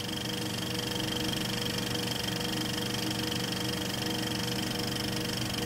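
Film projector running: a steady, rapid mechanical clatter with a whir.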